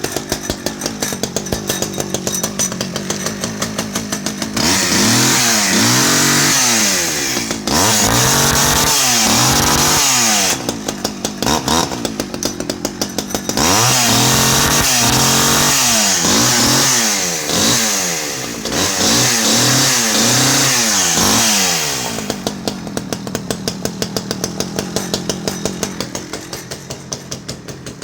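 Stihl 010 AV 37cc two-stroke chainsaw catching right at the start and idling, then revved to full throttle several times with quick throttle blips in between. It settles back to a steady idle for the last several seconds.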